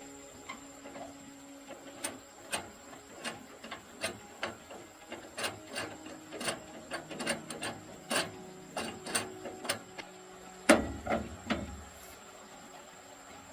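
Irregular clicks and knocks of tools and machine parts being handled during repair work, with a heavier thump about eleven seconds in.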